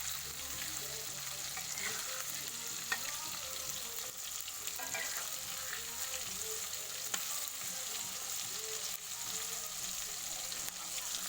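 Flour-battered oyster mushrooms frying in hot oil, a steady sizzle, with two short sharp clicks about three and seven seconds in.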